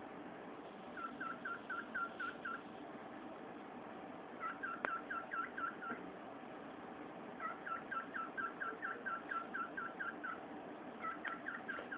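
Male cockatiel chirping in rapid runs of short, hooked notes, about four a second, with pauses of a second or two between runs: the chirping that goes with his head-bobbing courtship display. There is one sharp tap about five seconds in.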